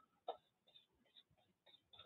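Near silence: room tone, with one faint short click about a quarter of a second in.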